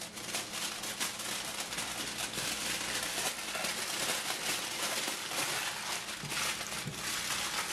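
Aluminium foil crinkling and crackling as hands fold and press it tightly around a whole eggplant, a steady run of small crackles.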